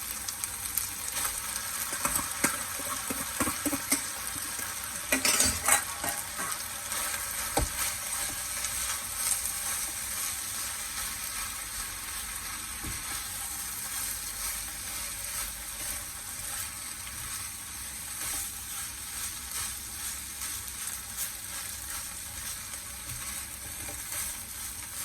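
Freshly added rice frying and sizzling in a hot pan with corned beef, chilli and onion as it is stirred and scraped. Sharp knocks of the utensil on the pan come in the first several seconds, loudest about five seconds in, over a steady sizzle.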